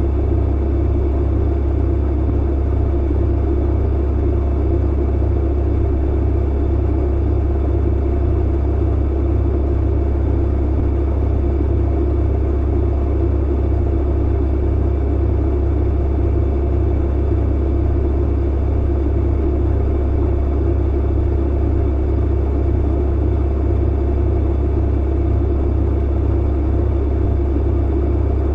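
Clothes dryer running steadily: a deep, even hum with a rumbling tumble noise over it.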